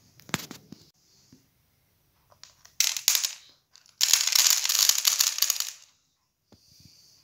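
A plastic protractor edge scraped across the top of a glass heaped with dried corn kernels, the kernels rattling against each other and spilling onto the tray. A sharp click comes just after the start, a short scrape about three seconds in, then a longer, louder scrape of nearly two seconds.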